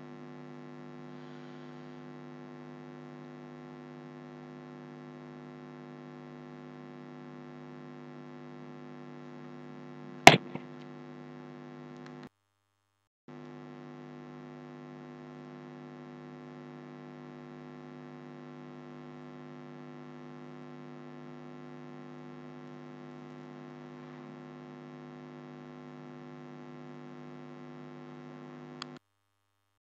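Steady electrical mains hum, a buzzy drone of many evenly spaced tones, with one sharp click about ten seconds in. The hum cuts out for about a second just after twelve seconds and again near the end.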